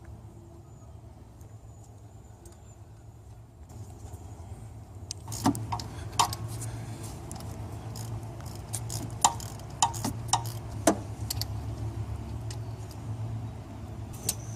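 Light metallic clinks and clatter of hand tools and engine parts being handled, scattered irregularly from about five seconds in, over a steady low hum.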